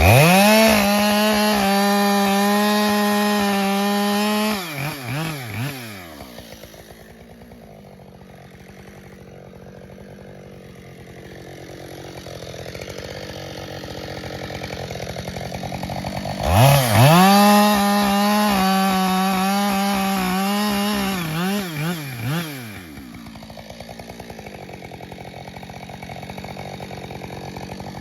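Husqvarna 572XP two-stroke chainsaw with a 20-inch bar cutting ash logs into firewood. It is held at full throttle for about four seconds, then drops to a low idle for about ten seconds. It then runs at full throttle again for about six seconds, idles again, and revs up once more at the very end.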